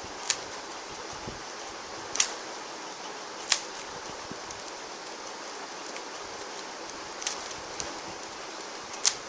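A handful of sharp, irregular clicks from a YJ Linggan 3x3 speed cube as its layers are turned to show corner cutting, over a steady background hiss.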